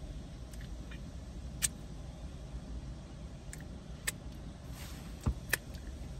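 Close-up mouth sounds of eating: a few sharp lip smacks and wet clicks as she chews and licks her fingers, over a steady low rumble.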